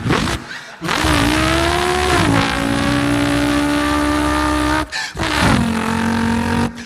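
A person vocally imitating a race car engine: one held, buzzing engine-like drone that rises and then holds steady, like a car accelerating flat out. It breaks off briefly about five seconds in, like a gear change, and picks up again at a lower pitch.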